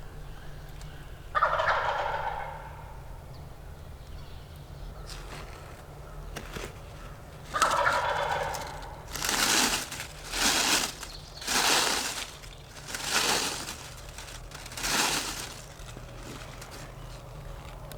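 Wild turkey gobbling: a gobble about a second and a half in and another after about seven seconds, then five more harsh bursts about a second apart.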